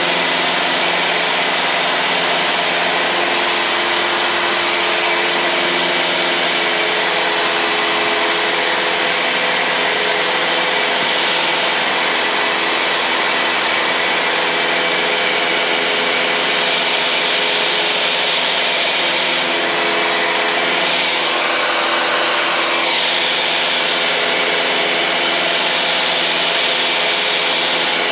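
Steady drone of a 1978 Cessna 172N's four-cylinder Lycoming engine and propeller in level flight, heard through the pilot's headset intercom.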